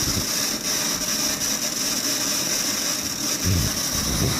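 Loud, steady harsh noise through the PA speakers, like static with a strong high-pitched hiss: a fault in the digital audio chain (Behringer ADAT converters into the mixing computer), which the tech suspects is the computer. A couple of low thumps come near the end.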